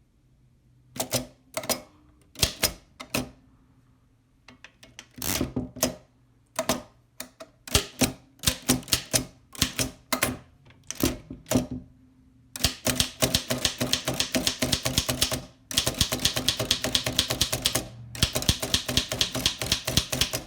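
Oliver No. 3 typewriter being typed on: separate sharp keystroke clacks at first, turning into fast, continuous runs of strikes for the last eight seconds or so, with two short pauses.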